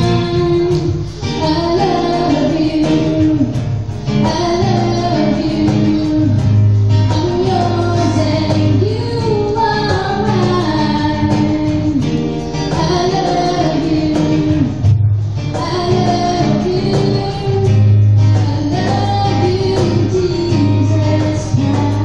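Live female vocal group singing a song through microphones, accompanied by acoustic guitar, in phrases of a few seconds each.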